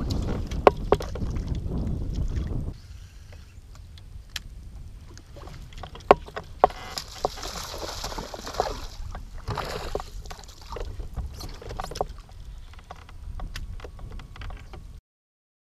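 A hooked bass splashing and thrashing at the surface beside a fishing kayak, mostly in the middle stretch, amid scattered clicks and knocks from the rod, reel and hull. A low rumble on the microphone fills the first few seconds.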